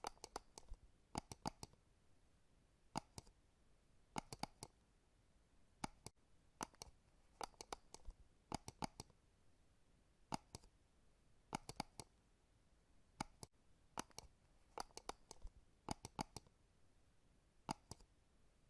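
Computer mouse button clicked over and over in quick groups of two to four sharp clicks, the groups about a second apart.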